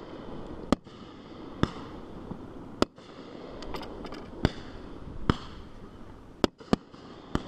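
Fireworks going off: a series of sharp bangs, about eight in all, roughly one a second, over a continuous noisy background.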